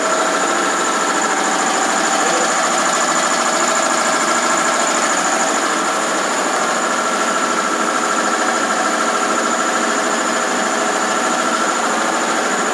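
Steady running noise of workshop machinery, with a constant high whine over it and no separate strokes or clunks.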